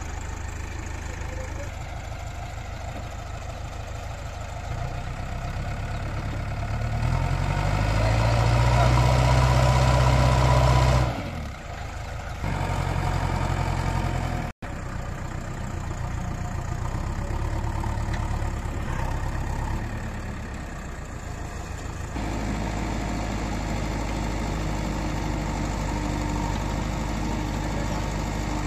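JCB 3DX backhoe loader's diesel engine running. It revs up to a higher, louder pitch for several seconds as the machine works, then drops back abruptly. It cuts out for an instant partway through, then carries on at a steadier run.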